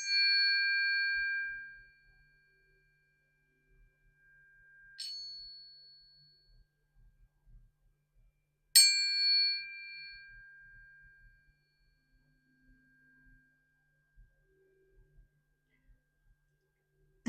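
A small metal chime struck three times, each strike ringing a clear high tone that fades slowly over several seconds; the second strike is softer than the other two.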